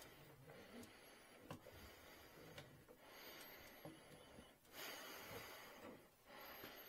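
Near silence: faint background hiss with a few soft, scattered clicks.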